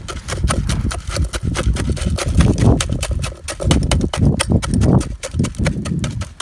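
Seashell paste being stirred and scraped by hand in a metal pan, a fast irregular run of scraping clicks.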